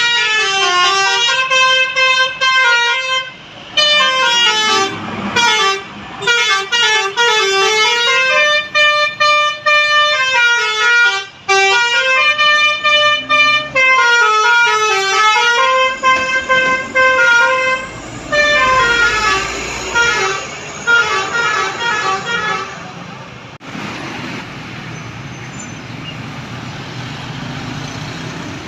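Bus 'telolet basuri' musical air horn playing a fast tune of stepped notes that run up and down the scale, for about twenty seconds. It then stops, leaving road traffic noise.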